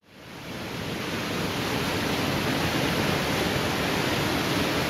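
Steady rush of fast tidal rapids, whitewater churning through a standing wave, fading in over the first second.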